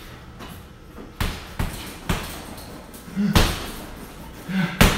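Punches landing on a hanging heavy punching bag: several irregularly spaced thuds, louder in the second half, the loudest near the end.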